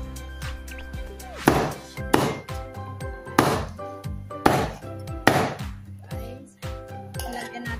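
Background music over a knife chopping through cooked chicken on a wooden cutting board: five loud, sharp chops at uneven intervals.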